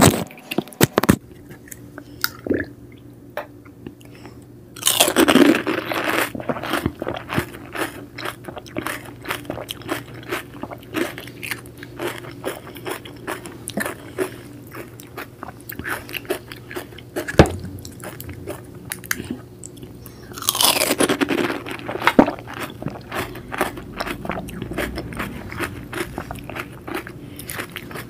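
Close-up eating sounds of pani puri: crisp hollow puri shells being bitten and crunched, with loud bursts of crunching about five seconds in and again around twenty seconds, and steady chewing and small crackles between. A few sharp cracks at the very start come from a puri shell being broken open by hand.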